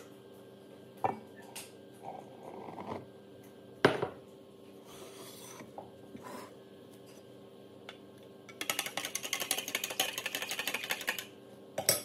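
Kitchen handling sounds around a stainless steel stand-mixer bowl: a few knocks and taps, the sharpest about four seconds in, as flour is tipped into the bowl. Near the end comes about two and a half seconds of fast, scratchy ticking.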